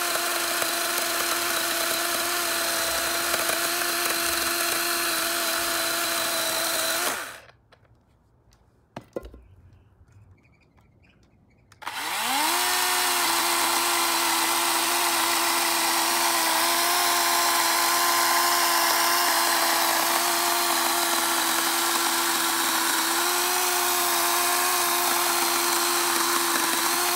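DeWalt DCCS620 20V MAX brushless battery chainsaw running steadily as it cuts through a log. About seven seconds in the motor winds down and stops, leaving a few seconds of near silence with a single click. About twelve seconds in it spins back up and runs steadily through the cut again.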